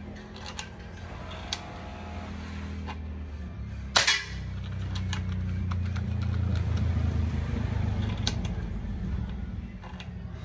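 One sharp shot from a Manlapat air rifle firing a .22 pellet about four seconds in, with a few light clicks before it. A low hum runs underneath, growing louder after the shot and easing near the end.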